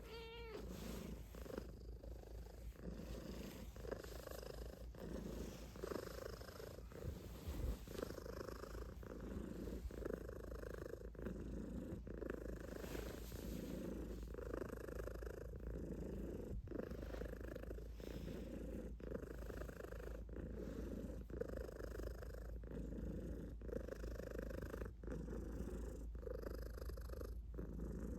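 Calico cat purring steadily and close, swelling and easing with each breath about once a second, with a short wavering cat call right at the start.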